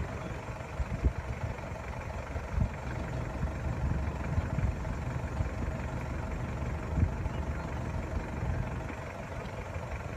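A diesel 4x4's engine running steadily at low speed as it crawls over a rocky riverbed, heard from inside the cabin, with a few short knocks and thumps from the rough ground.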